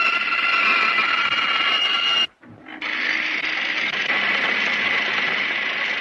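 Sawmill power saws on an old film soundtrack: a band saw whining steadily as it cuts wood, a short break about two seconds in, then a larger saw running with a noisier, steady whir.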